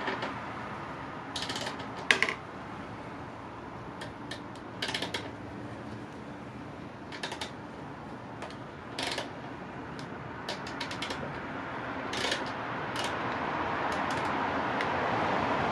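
Socket ratchet clicking in short bursts every second or so as bolts are loosened on the Honda Navi's fender, with a size 10 socket.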